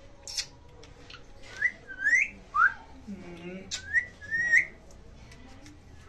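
Indian ringneck parrot giving a series of about five short, rising whistles, with a brief low voice-like call in the middle of them.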